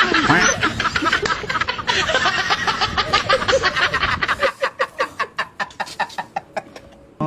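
A person laughing in quick, repeated bursts. About two-thirds of the way through the laughter slows into separate pulses that fade out.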